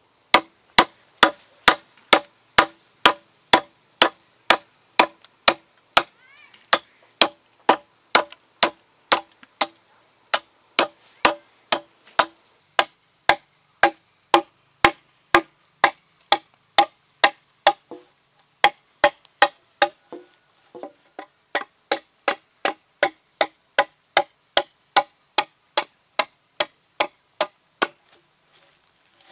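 Machete chopping green bamboo culms: a steady run of sharp strikes at about two a second, with a few softer blows about two-thirds through.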